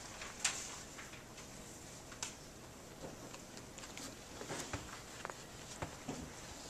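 Quiet room with scattered small clicks and rustles of paper and pens as a seated group writes. The sharpest click comes about half a second in.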